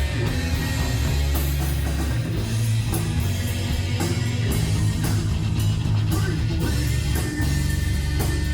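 Rock music played by a band with electric guitar, bass and drum kit, a steady beat with a heavy bass line.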